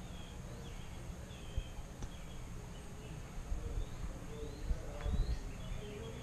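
Outdoor ambience of birds calling with short chirps and quick rising notes, over a steady high insect drone. Irregular low bumps and rumble sit under it, strongest near the end.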